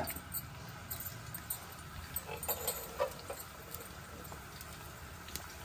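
Thinly sliced onions frying in hot oil in a pan: a steady, quiet sizzle with scattered small crackles and light ticks, the onions freshly added to be fried brown.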